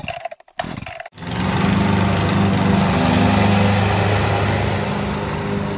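A lawn mower's small engine running steadily, starting about a second in after a few short broken sounds.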